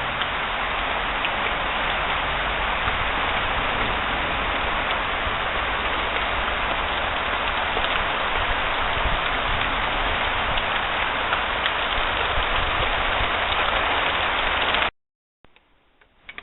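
Heavy thunderstorm rain pouring down in a steady, dense hiss, cutting off suddenly near the end.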